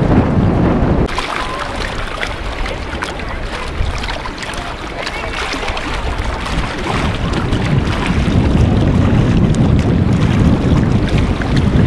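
Wind buffeting the microphone over small waves lapping and splashing at the shore of a lake. The low wind rumble eases about a second in, leaving the splashing clearer, then builds again near the end.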